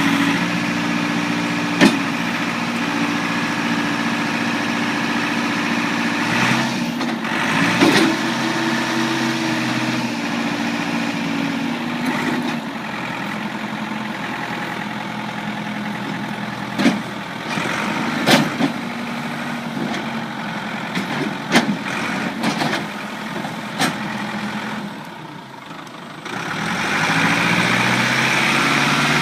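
Ford New Holland 555D backhoe's diesel engine running as the hydraulics are worked, its pitch stepping up and down, with several sharp knocks. Near the end the engine drops off briefly, then revs up louder.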